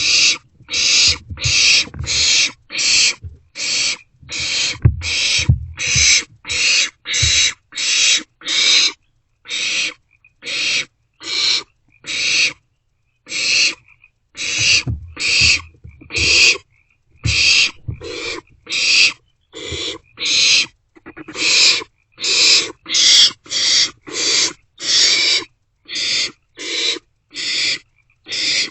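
Barn owlets giving their harsh, hissing food-begging calls in a quick, unbroken series of about one and a half a second. Low thumps sound under the calls for the first several seconds.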